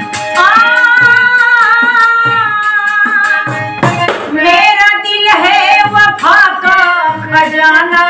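A ghazal sung to harmonium and a hand-beaten frame drum (dafli). The voice holds long lines that slide in pitch, over a steady beat of drum strokes.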